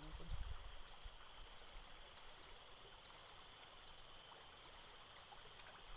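Steady high-pitched chorus of insects such as crickets, with short chirps repeating over it. A brief low thump sounds about half a second in.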